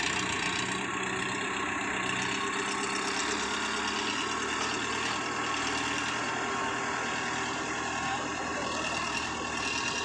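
Diesel engine of an Escorts tractor with a front loader, running steadily while the loader pushes snow and ice.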